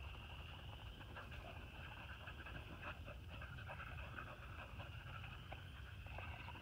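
Beagles panting faintly as they nose around, with many quick light ticks and rustles from their movement.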